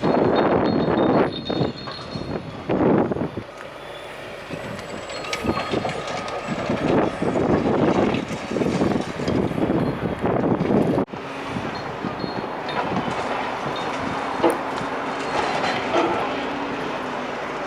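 Demolition machinery at work: irregular loud bursts of crunching and clanking for about ten seconds, then an abrupt break and a steadier noise with a few sharp knocks.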